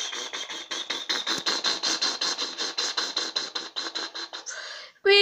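Battery-operated toy bus running: a scratchy, rhythmic chugging of about seven or eight beats a second that slows and fades out near the end. A loud steady beep starts right at the very end.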